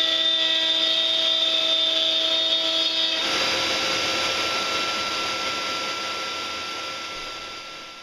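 Router in a Festool CMS router table running steadily with a high whine. About three seconds in the pitch of the whine changes and the sound turns hissier, then it slowly fades away toward the end.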